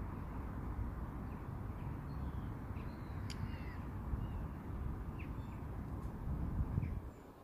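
Wind buffeting the microphone, a steady low rumble that eases off sharply near the end, with scattered short bird chirps over it and a single sharp click about three seconds in.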